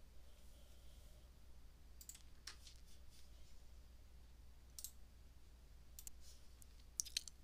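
Faint computer mouse clicks, a handful spread over several seconds, against near silence with a faint low hum.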